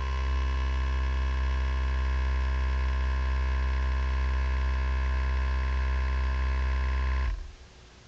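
A steady mechanical hum with many pitched overtones, cutting off abruptly about seven seconds in.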